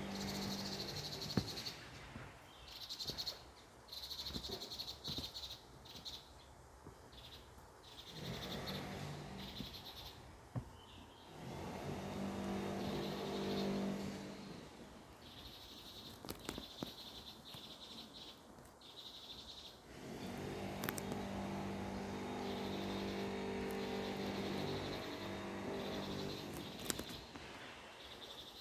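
Outdoor ambience: a low, steady engine-like hum swells and fades four times. Short high chirps come and go throughout, and there are a few sharp clicks.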